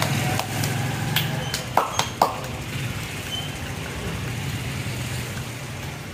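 Steady low mechanical hum, with three sharp metallic clinks close together about two seconds in.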